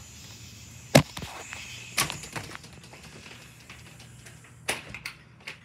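Several sharp knocks and clicks: a loud one about a second in, another near two seconds, and two more near the end, over a faint steady hum.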